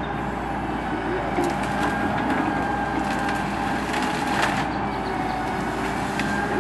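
Builtrite Model 88-TM truck-mounted loader running steadily with a constant whine while its grapple crushes and lifts a pile of tree brush, the branches cracking and snapping several times.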